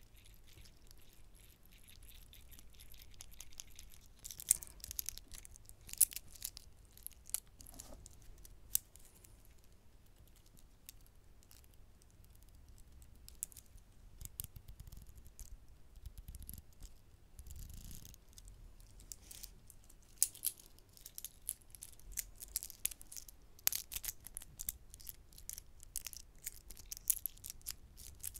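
Close-miked tapping and handling of a metal wristwatch and its steel link bracelet: irregular sharp clicks and light metallic clinks. They come thickly in two spells with a sparser stretch between.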